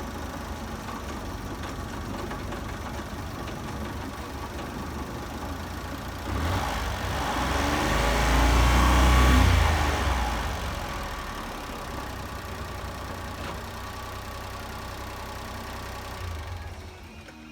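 Honda Acty kei truck's engine running steadily, then rising once about six seconds in to a loud peak and falling away again a few seconds later.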